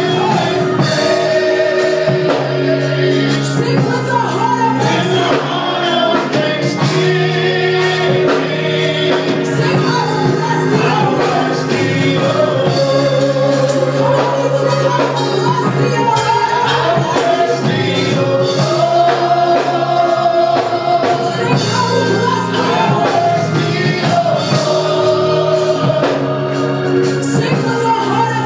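Gospel choir singing with instrumental accompaniment, sustained low notes under the voices and regular percussive strikes.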